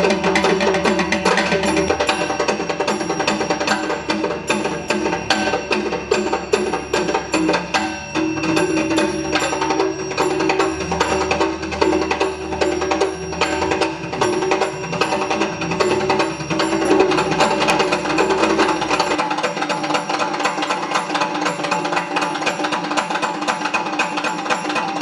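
Fast, continuous percussion accompaniment of a Koodiyattam performance: mizhavu drums played with small kuzhitalam hand cymbals ringing over the strokes. A low hum underneath cuts off about three quarters of the way through.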